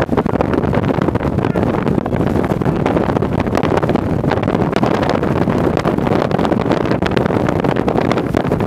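Strong wind buffeting the camera microphone: a steady, loud rush with many short thumps from gusts.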